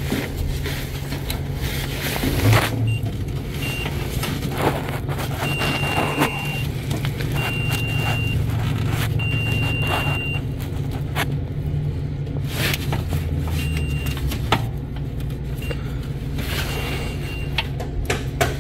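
Multimeter continuity tester beeping on and off in short beeps of uneven length as the wiring harness is moved: contact making and breaking at a wire cut by rubbing or accident damage. A steady low hum runs underneath, with light clicks of wires being handled.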